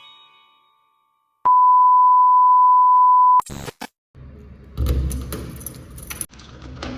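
A single steady electronic beep, one pure high tone held for about two seconds, following the last ringing of a chime. After it come a few quick clicks, then a rustling, knocking background with a low thump.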